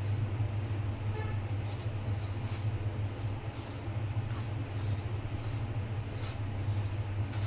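A steady low hum, over which a hand mixes a dry wheat-flour, semolina and ghee mixture in a steel bowl with soft, scattered rustles.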